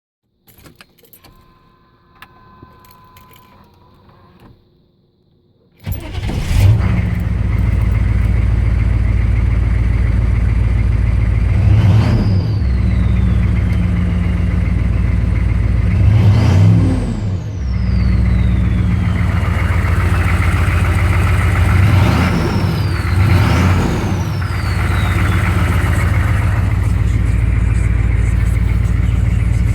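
A 1996 GM 6.5 L V8 turbo diesel with straight-piped exhaust cranks and starts about six seconds in after a quiet stretch with a faint tone. It settles into a loud idle and is blipped four times. After each blip the turbocharger whistle falls away as it spools down.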